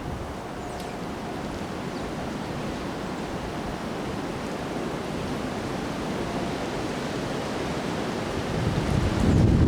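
Strong wind of a windstorm blowing as a steady rushing noise, swelling into a louder gust near the end that buffets the microphone with a low rumble.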